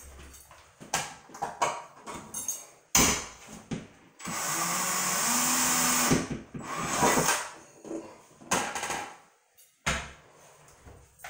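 DeWalt cordless drill/driver running steadily for about two seconds, from about four seconds in, driving a screw into the frame of a metal medicine cabinet. Sharp knocks and clatter from handling the cabinet come before and after; the loudest knock is about three seconds in.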